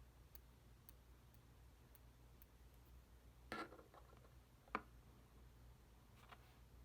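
Near silence with faint room hum, broken by a few light clicks and taps, the loudest just under five seconds in: small metal tweezers being handled and set down.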